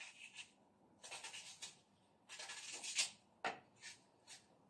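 Dry onion being cut with a knife while held in the hand, a run of short crisp slicing scrapes with a couple of sharper clicks of the blade a little past halfway.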